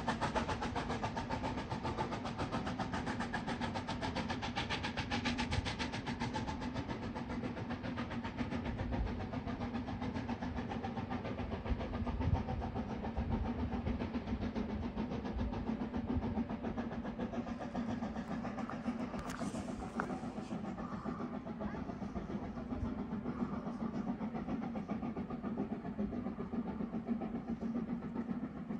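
Coal-fired 2-10-2T narrow-gauge steam tank locomotive exhausting in quick, even beats as it pulls its train away up a steep grade. The sharper top of the sound fades after several seconds as it draws off into the distance, leaving a steady lower rumble.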